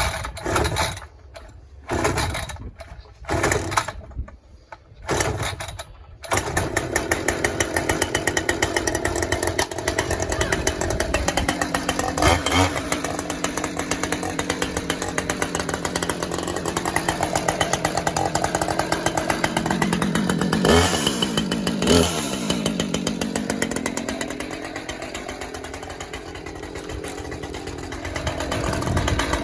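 Husqvarna 545 X-Torque two-stroke chainsaw starting: a few short sputtering bursts, then about six seconds in it catches and runs continuously. Its engine revs up and down briefly around twenty seconds in, settles lower, and rises again near the end.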